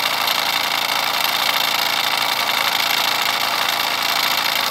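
Mamod SP4 toy steam engine running steadily at speed, a fast even chuffing with steam hiss and light mechanical clatter as its flywheel spins, under load driving a toy cement mixer.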